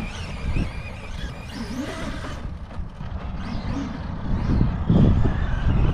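Radio-controlled Arrma Mojave 6S EXB truck driving over rough, rutted desert ground, its electric motor and drivetrain rising and falling with the throttle over a low rumble, louder about five seconds in.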